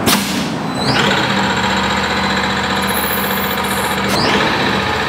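CNC machine running with a stainless steel bottle clamped in it, trimming the bottle to a set height: a steady machine hum and whir, with a rising whine about a second in and again about four seconds in.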